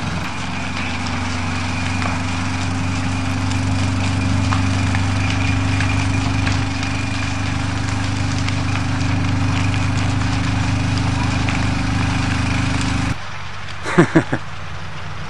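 An engine running steadily with a low hum and a thin whine, with scattered sharp crackles over it. The sound drops off abruptly about thirteen seconds in, and three short loud sounds come in quick succession near the end.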